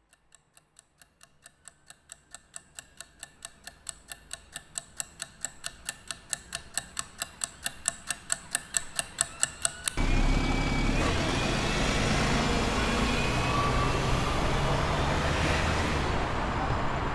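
Clock ticking fast and even, about four to five ticks a second, growing steadily louder for about ten seconds. It cuts off suddenly into loud city street traffic with a bus engine running.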